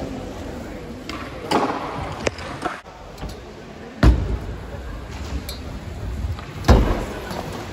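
Freestyle scooter wheels rolling on concrete, with a few light knocks and two heavy landing thuds, one about four seconds in and one near the end.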